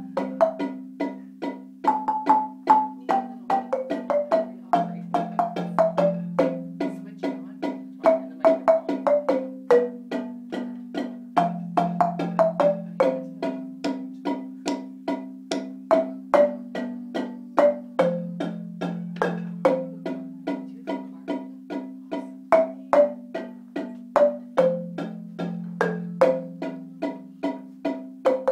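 Wooden marimba played with mallets: a quick repeating melody of struck notes, about two or three a second, over a lower part that steps through a few notes in a cycle of about six and a half seconds.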